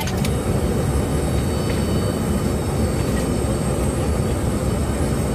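Steady low rumble inside the cabin of a parked Boeing 717 airliner, its systems still running, with no voices over it.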